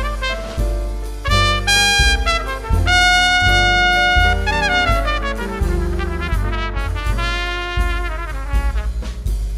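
Trumpet playing a slow jazz ballad solo over piano, string bass and drums, with a long held note about three seconds in that slides down in pitch.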